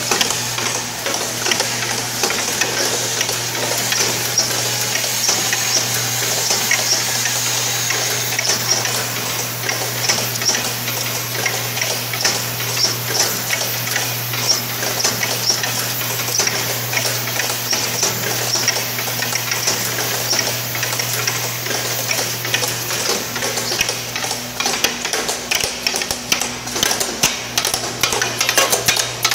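Automated feeder line running, with a steady low electric hum under a continuous dense rattling and ticking as small packets are fed along the track. The clicks grow sharper and more frequent in the last few seconds.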